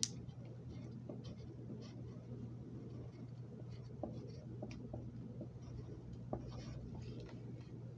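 Pencil lead scratching faintly on paper in short, irregular strokes as a note is written, with a sharp tap right at the start.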